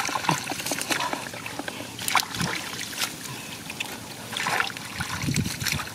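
Hands splashing and squelching in shallow muddy water, with irregular small splashes and drips.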